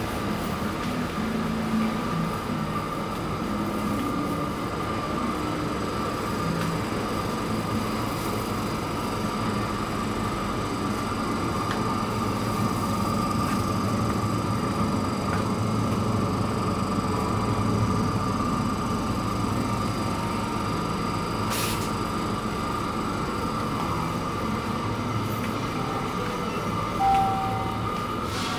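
Steady supermarket background noise: a constant hum with faint steady tones, as from refrigerated display cases and ventilation, and a short beep near the end.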